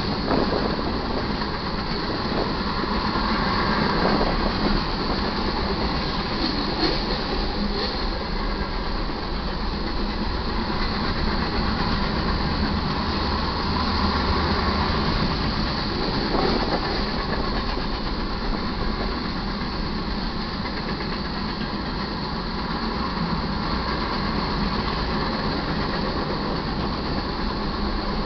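Cars of a manifest freight train rolling steadily past: a continuous rumble of steel wheels on the rails, with some clatter over the joints.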